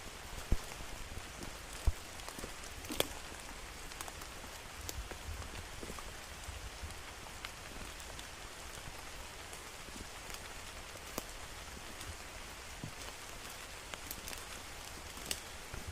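Steady rain falling, an even hiss with scattered sharp taps of single drops landing close by; a few louder taps come in the first three seconds.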